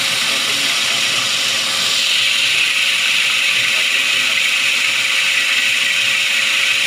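Peanut chopping machine running steadily, its blades chopping roasted peanuts into small bits for topping. The noise is loud and even throughout.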